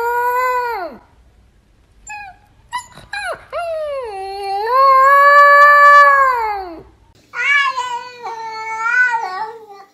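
A husky-type puppy howling: one howl drops away about a second in, a few short yips follow, then one long howl that falls off just before seven seconds. After that a cat gives a run of wavering, drawn-out meows.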